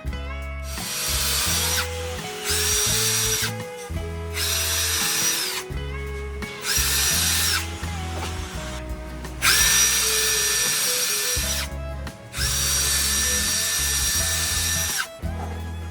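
An electric power tool's motor run in about six bursts of one to three seconds, each spinning up to a steady high whine and winding down, over background music.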